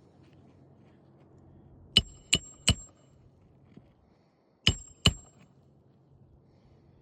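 Hammer driving roofing nails into a replacement shingle: three quick blows, a pause, then two more, each with a short metallic ring.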